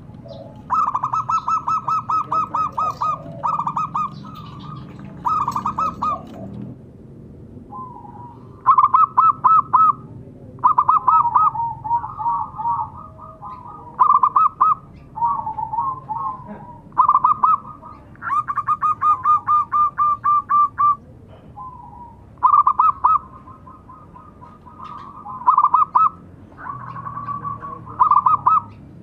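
Zebra dove (perkutut) cooing: repeated runs of rapid staccato notes, each run lasting from about half a second to a few seconds, with short pauses between.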